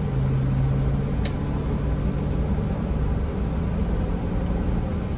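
Car driving slowly on a slick, snow-covered road, heard from inside the cabin: a steady low engine hum that rises slightly in pitch, over road rumble. A single short click about a second in.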